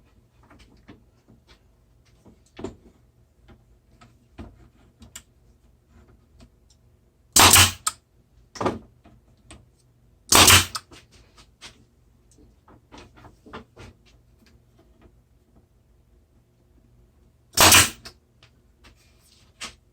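Nail gun firing three times, with long pauses between shots, driving nails to fasten thin wooden shims to a drawer. Light knocks and handling clicks between the shots.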